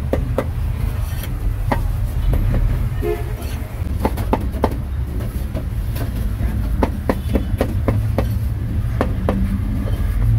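Cleaver chopping on a cutting board, sharp knocks coming in runs of about three a second, over a steady low rumble of road traffic.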